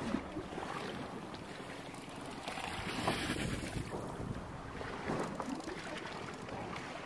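Wind rushing over the microphone with water sloshing against a boat's hull, swelling briefly about halfway through.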